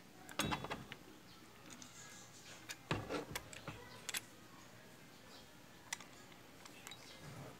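Metal clicks and clinks from a hand riveter being handled and fitted back together: a short run of knocks just under a second in, a louder run about three seconds in, then single clicks.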